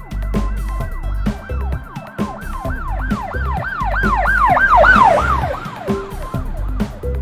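Electronic dance music with a kick-drum beat and a repeated swooping, siren-like synth line that builds in loudness to a peak about five seconds in, then falls away.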